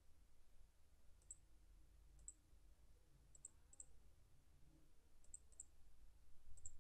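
Faint computer mouse clicks, about seven of them spread over several seconds, some in quick pairs, over near-silent room tone.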